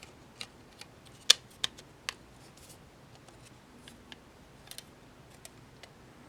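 Thin acrylic case panels clicking and tapping against each other as they are handled and fitted together: a handful of sharp clicks in the first two seconds, the loudest about a second and a half in, then sparser, fainter taps.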